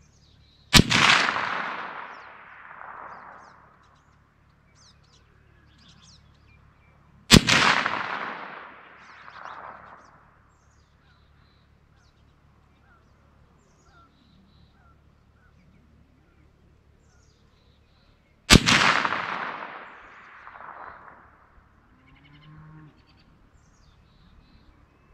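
Three single shots from a PPS-43C firing 7.62×25 mm Tokarev, the second about seven seconds after the first and the third about eleven seconds later. Each shot trails off in echo over two to three seconds.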